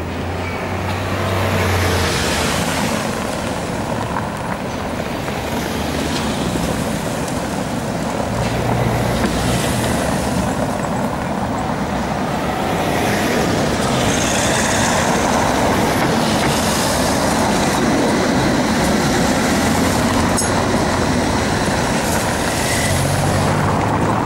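Tatra T3 trams running along street track, a steady rumble of wheels and motors mixed with street traffic. It grows louder through the second half.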